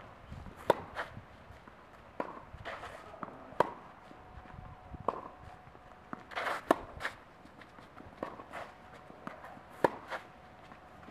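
Tennis rally on a clay court: sharp pops of the ball on racket strings, the loudest about every three seconds, alternating with fainter hits from the far end and ball bounces, with footsteps on the clay in between.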